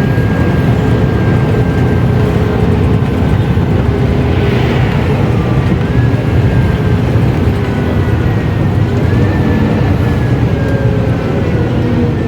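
Mercedes-Benz O500U city bus diesel engine running steadily under way, a loud continuous drone. A thin high whine over it shifts up in pitch a couple of times.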